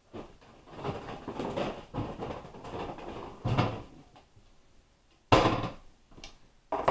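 Rummaging in a kitchen cupboard for a plastic container, with handling and clattering noise and then a sharp knock about five seconds in, the loudest sound, and another knock near the end, as of a cupboard door closing.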